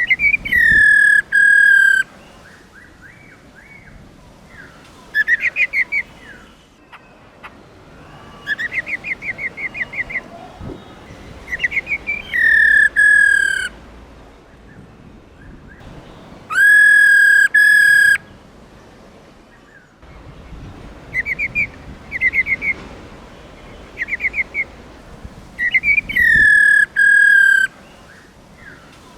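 Black-throated laughingthrush calling in loud bouts every few seconds: long whistled notes that drop slightly in pitch and then hold, alternating with rapid rattling trills, the female's 'ro ro' call.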